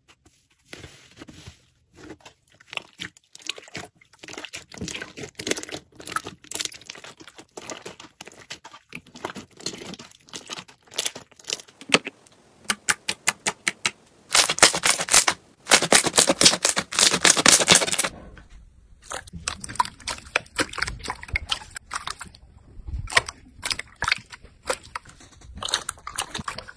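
Slime being pressed, poked and stretched by hand: dense sticky crackling, with popping clicks as air pockets burst. A loud run of rapid crackling comes about halfway through. Near the end clear slime is kneaded in a bowl of water.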